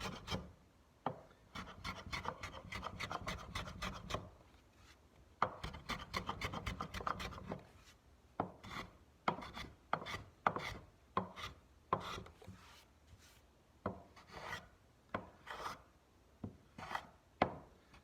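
Low-angle block plane shaving end grain in short downward strokes, smoothing the table-saw facets of a roundover. The strokes come in quick runs in the first half, then one at a time, about two a second.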